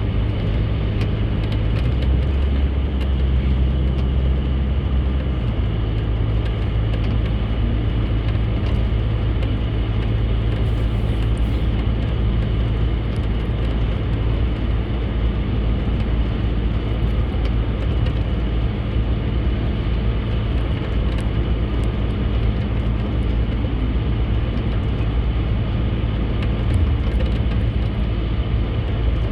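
Steady road drone of a car driving, with engine and tyre hum heard from inside the cabin.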